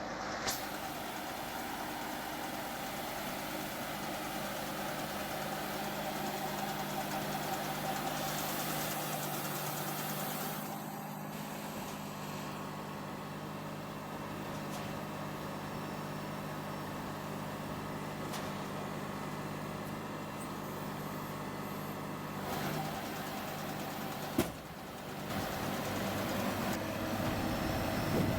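Massey Ferguson 5610 tractor's diesel engine running steadily, a constant low hum with no change in speed. The sound shifts slightly about ten seconds in and breaks off briefly near the end.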